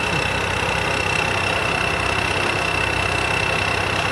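Rice combine harvester's diesel engine idling steadily, with a constant high whine above the engine sound.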